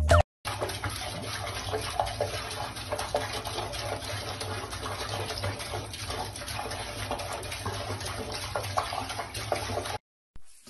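Water running steadily from a bathroom faucet into a sink while a cat paws at the stream. It cuts off suddenly near the end.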